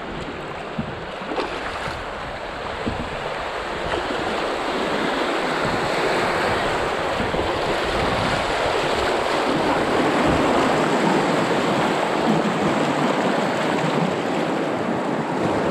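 Rushing whitewater of a small river rapid splashing around an open canoe. It grows louder through the first half as the boat runs into the waves, then holds steady.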